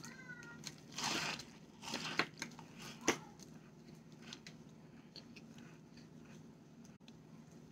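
Packed cornstarch being bitten and crunched: a short squeak at the start, loud crunches about one and two seconds in and a sharp one about three seconds in, then fainter crunches.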